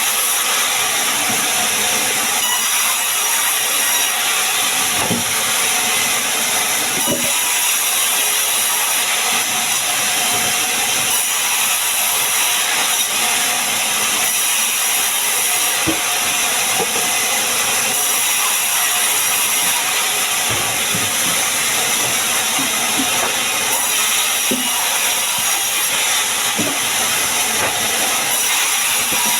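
Sawmill saw cutting sengon timber, with its motor running: a steady, loud hiss that holds without pause, with a few small knocks.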